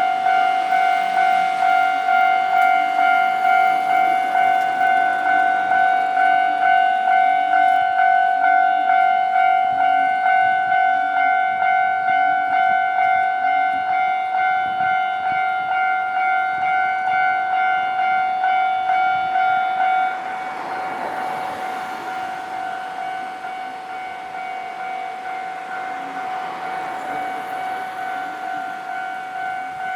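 Japanese railway level-crossing warning bell ringing steadily, an electronic ding about twice a second. About twenty seconds in it drops to a lower volume, and the rushing noise of a passing train rises and falls under it.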